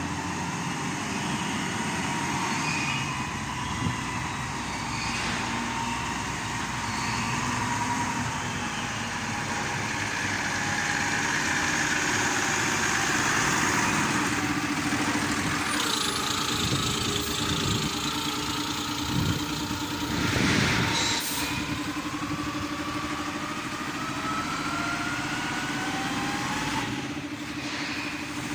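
Engine of a Yale 10-ton lift truck running steadily, with a louder surge about two-thirds of the way through. A whine slowly rises in pitch over several seconds and stops shortly before the end.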